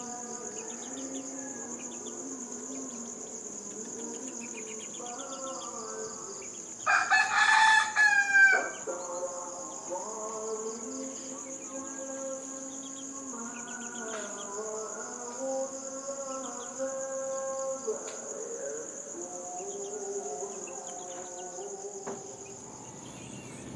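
A steady, pulsing high-pitched drone of insects such as cicadas or crickets, with a rooster crowing loudly once about seven seconds in, its call falling at the end. Softer calls of other birds and held tones of shifting pitch sit beneath.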